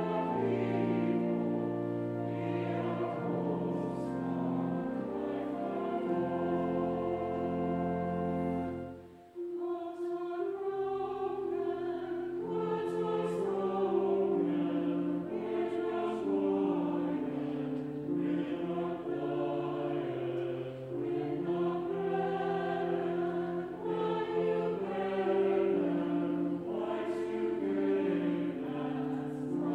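Choir singing church music over held instrumental chords. The music breaks off briefly about nine seconds in, then resumes.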